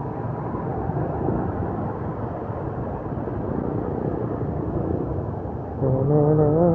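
Steady riding noise from a Yamaha YTX 125 motorcycle underway, an even low rumble of engine and road. A voice comes in near the end.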